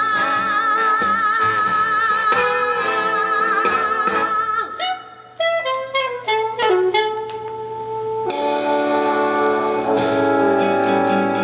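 Jazz recording with horns: a long held note with vibrato, a quick descending run of notes, then the fuller band comes in with sustained chords about eight seconds in.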